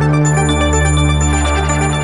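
Closing jingle music for a news channel's logo sting: sustained low notes under bright, bell-like high tones that come in just after the start.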